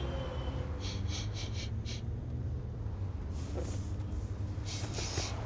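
A person sniffing the air: a quick run of about five short sniffs, then two longer sniffs, over a low steady rumble. It is the sniffing of someone checking a smell of smoke, incense or a joint.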